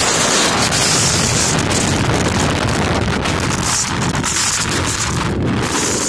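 Strong wind blowing hard across the microphone, mixed with the rush of a rough sea breaking around a small wooden boat. Loud and steady throughout.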